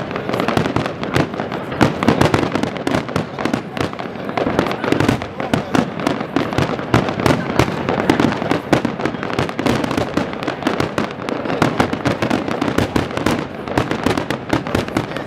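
Fireworks display: a dense, continuous barrage of bangs and crackling bursts, with people talking underneath.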